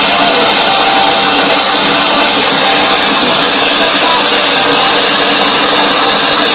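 A home theatre tower speaker putting out a loud, steady, harsh distorted noise, the 'thundering cloud' (बादल गरजने) sound it makes on Bluetooth, AUX or FM. This is the sign of a fault in its amplifier board, usually a failing amplifier IC, though weak supply from a swollen capacitor or a faulty rectifier bridge can cause it too.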